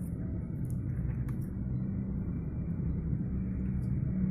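A steady low rumble of background noise, with a few faint clicks.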